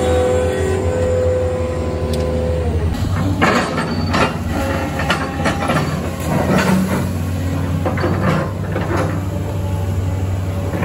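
Heavy diesel equipment engine running steadily. About three seconds in the sound changes abruptly to a low engine drone with repeated sharp cracks and snaps, like brush and wood breaking under the machine.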